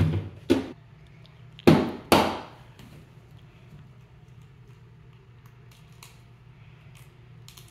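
Sharp knocks of glass kitchenware set down on a tabletop: two near the start, then a louder pair about two seconds in, followed by a few faint ticks.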